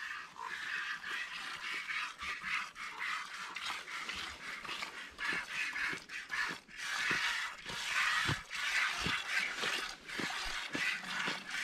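A goat being milked by hand: repeated short squirts of milk hissing into a pail.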